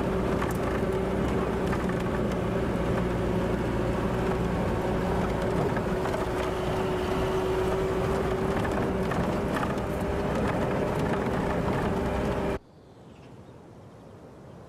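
Steady engine and cab noise from inside a Land Rover on the move: a continuous drone with a held hum over it. About twelve and a half seconds in, it cuts off abruptly to faint outdoor background.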